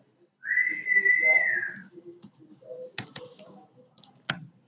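A single whistled tone, held for about a second and a half and bending slightly up and then down. It is followed by a few sharp computer keyboard clicks as a word is typed.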